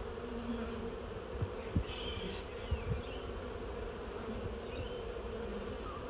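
Swarm of honey bees giving a steady buzzing hum as they cluster on a branch and crawl down into a nucleus box. A few soft low thumps come in the first half, with faint high chirps in the background.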